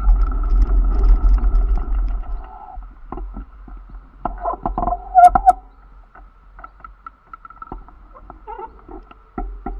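Street traffic: a car's low engine and tyre rumble fades away over the first few seconds. About four to five seconds in comes a short burst of high squeaks and clicks, then scattered faint ticks.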